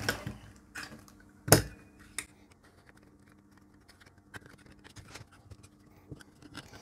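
Circuit board being handled and fitted into a plastic PCB holder: one sharp clack about a second and a half in, with a few lighter clicks around it, then faint ticks and scraping.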